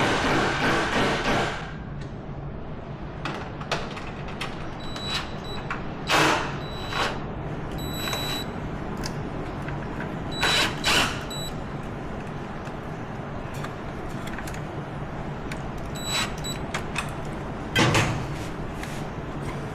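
Hand tools and metal parts clinking and clanking off and on during work on a quad, several strikes leaving a short high metallic ring, over a steady low hum. A loud rushing noise fills the first couple of seconds, then stops.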